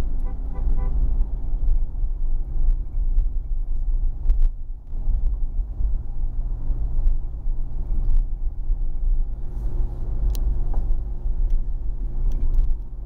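Car interior while driving: a steady low rumble of road and engine noise with an even engine hum, and scattered small clicks and knocks.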